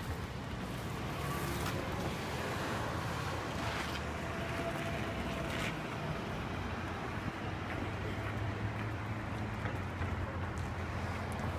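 Steady low rumble of outdoor street ambience, with a few faint brief scuffs.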